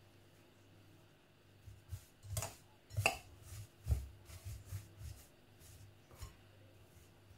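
Spatula stirring chocolate-coated puffed rice in a glass bowl: irregular scrapes and knocks against the glass, starting about two seconds in.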